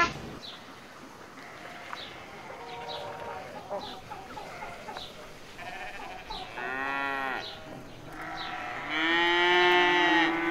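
A farm animal calling twice: a shorter cry about seven seconds in, then a longer, louder one held steady near the end.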